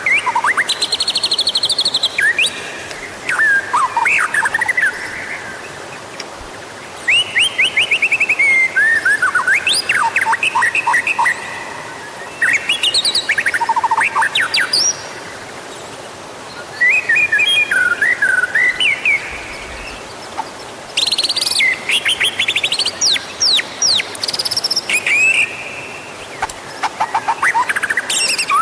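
White-rumped shama singing: rapid, varied phrases of whistles, trills and sweeping notes, delivered in bursts with short pauses between them.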